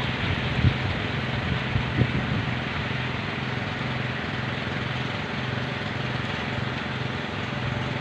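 Kolecer, wind-driven propellers on tall bamboo poles, spinning in strong wind and making a steady low hum that pulses evenly, over wind noise.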